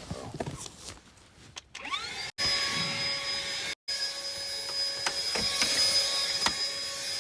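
Small vacuum cleaner switched on about two seconds in. Its motor whine rises quickly, then runs steadily while it sucks up dust, with a few sharp ticks of debris.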